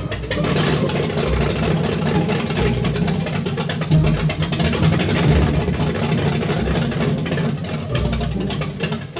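A 540 cubic-inch big-block Chevy V8 running at idle through open headers with no exhaust system, loud and pulsing, with a brief rise about four seconds in.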